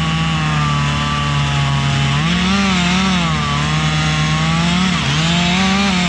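Two-stroke chainsaw running hard, its engine note holding steady and then dipping and climbing again a few times.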